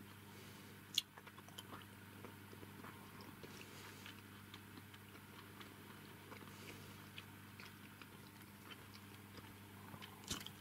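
Quiet room tone: a low steady hum with faint scattered clicks and crackles, a sharp click about a second in and another near the end.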